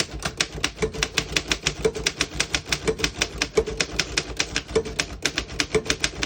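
1912 Underwood No.5 manual typewriter being typed on at a steady pace, its typebars striking about six or seven times a second.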